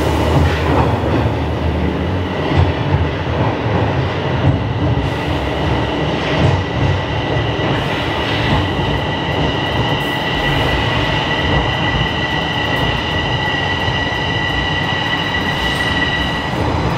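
Toronto Rocket subway train pulling into a station and slowing to a stop, with a steady rumble and a few knocks from the wheels. From about eight seconds in a high steady whine rises above the rumble and cuts off shortly before the end.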